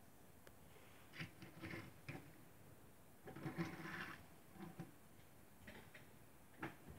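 Die-cast toy car's small wheels rolling and scraping on a wooden tabletop as a hand pushes and turns it, in a few short, faint bursts, with a sharp click near the end.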